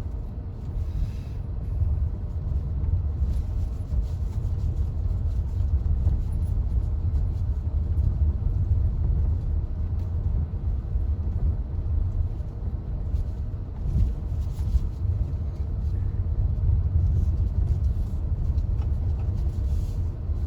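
MG HS SUV driving, a steady low rumble of engine and tyres.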